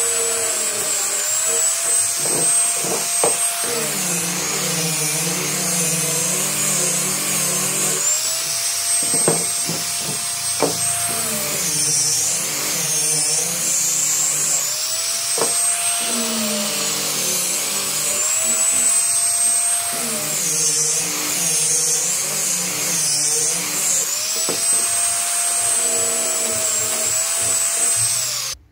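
Small electric angle grinder with a sanding disc running steadily while sanding a curved wooden piece. Its whine dips in pitch and recovers every few seconds as the disc bears on the wood and eases off, with a few sharp knocks of the disc against the edge. It shuts off just before the end.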